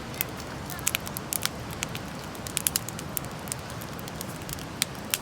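Wood campfire crackling, with irregular sharp pops over a steady low hiss.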